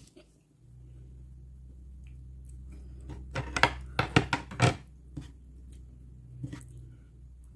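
Eating with the hands: a quick run of sharp clicks and smacks from chewing and handling food on the plates, over a steady low hum.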